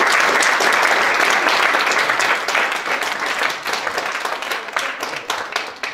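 Small seated audience applauding, loud at first and gradually thinning out and fading over the last few seconds.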